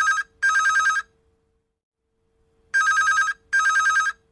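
A telephone ringing in a double-ring pattern: pairs of short trilling rings with a pause of about a second and a half between the pairs, signalling an incoming call.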